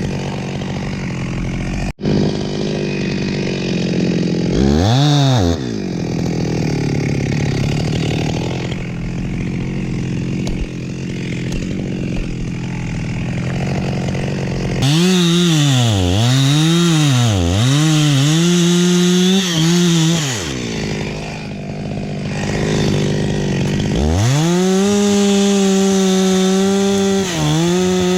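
Two-stroke chainsaw running at a steady lower speed, revved up briefly about five seconds in, then revved up and down several times in a row and held at high speed near the end, with a short dip. A sharp click about two seconds in.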